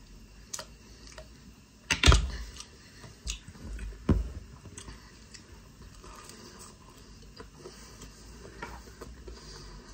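A person chewing a fried chicken sha phaley pastry, with small clicks of chewing throughout and two louder bites about two and four seconds in.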